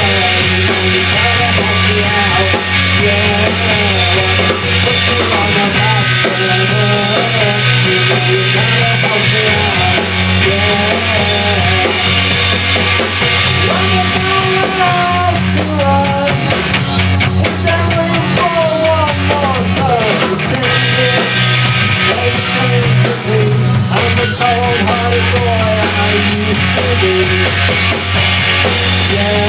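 A live rock band playing a cover song on drum kit, electric guitars, bass guitar and keyboard, with a steady beat and a sustained bass line. About two-thirds of the way in, a melodic line slides downward in pitch.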